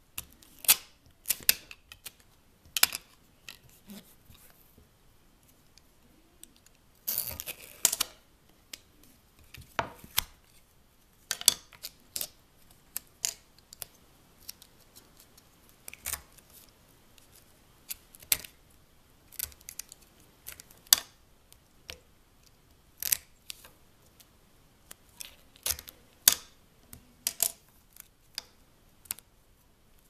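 Duct tape and a plastic light switch plate being handled on a stone countertop: scattered sharp clicks, taps and crinkles, with a crackling rustle of tape lasting about a second, about seven seconds in.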